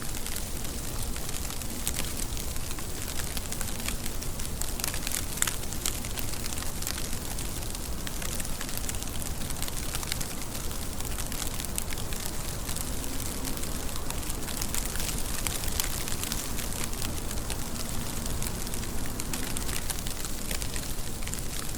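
Steady rain falling: an even wash of noise dotted with many separate drop ticks.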